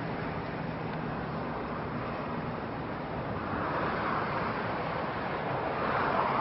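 Twin-engine jet airliner taxiing on a runway, its engines giving a steady rushing noise that swells as the aircraft turns toward the listener near the end.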